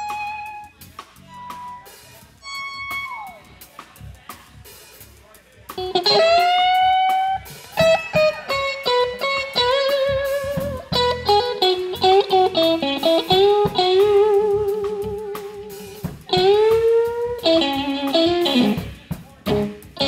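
Blues band playing live: an electric guitar solos over bass and drums. It plays a few soft, sparse notes at first, then from about six seconds in loud sustained lead lines with string bends and vibrato.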